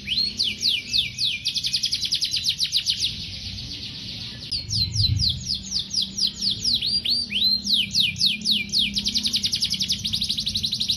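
Domestic canary singing a long, vigorous song: fast trills of rapidly repeated notes alternating with runs of downward-sweeping whistles. The song softens briefly about three seconds in, then picks up again.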